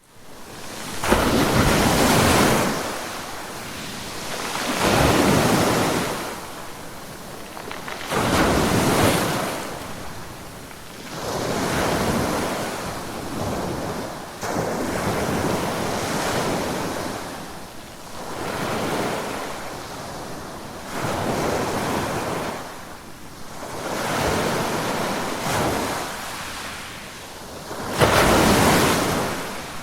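Ocean waves breaking and washing up the shore, the surf noise swelling and fading about every three to four seconds, with the biggest wave near the end.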